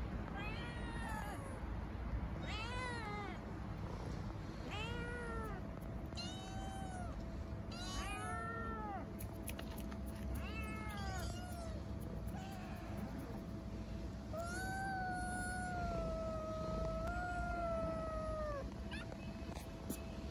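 Stray tabby kittens meowing for food again and again: about a dozen short rising-and-falling meows, then one long drawn-out meow lasting about four seconds past the middle.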